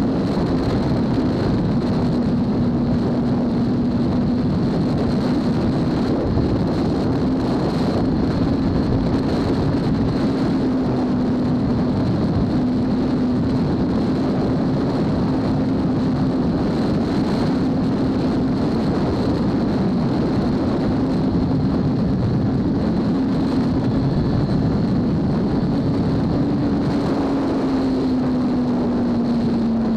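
2003 Kawasaki ZX-6R's inline-four engine with a full Hindle titanium exhaust, cruising at a steady pace, its note holding even and easing down a little near the end. Heavy wind rush on the bike-mounted camera's microphone sits under the engine throughout.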